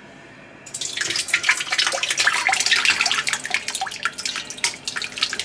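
Chilled chicken bone broth being poured through a double sieve, splashing and dripping, starting under a second in. The broth is cold and jellied, so it does not run freely through the sieves.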